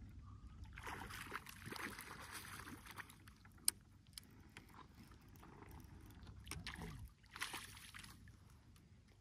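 A hooked fish splashing at the water's surface as it is drawn in toward the bank, in two spells of splashing, about a second in and again near the end. A single sharp click sounds a little after three seconds in.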